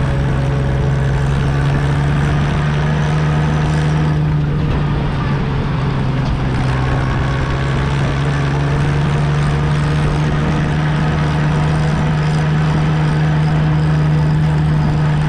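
Tractor engine running at a steady speed while travelling on the road: a constant drone that holds one pitch throughout.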